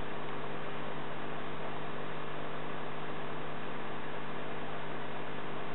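Steady electrical hum over a constant hiss, with no change in pitch or level.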